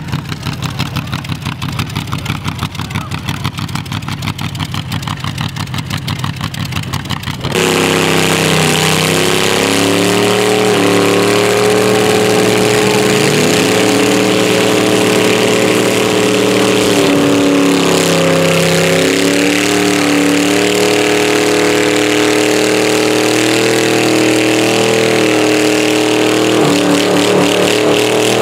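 Rat rod engine running at a lumpy, fast-pulsing idle, then about seven seconds in it revs hard and stays at high revs, the pitch wavering, through a burnout with the rear tire spinning on the pavement and smoking.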